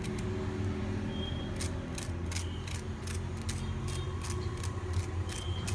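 Knife blade scraping across the crisp fried crust of a rice medu vada, giving a crunchy scratching at about four strokes a second. The crackle starts about a second and a half in and shows how crisp the crust is.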